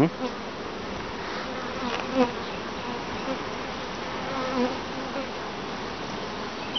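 Honeybees buzzing around a comb frame lifted from an open hive: a steady hum, with single bees' buzz wavering in pitch as they fly about.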